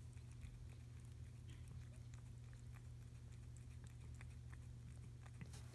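Near silence: a steady low hum with faint, scattered small clicks and rustles from the mother cat and her newborn kittens.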